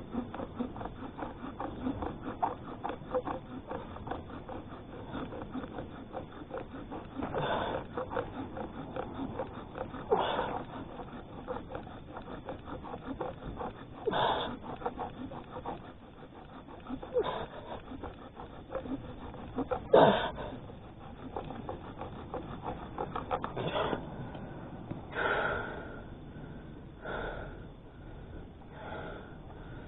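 Bow drill running: the bow sawing back and forth spins a wooden drill stick in a fireboard, a fast, even rubbing of wood on wood as friction builds an ember. Loud breaths from the effort come every few seconds, and the rubbing gives way near the end.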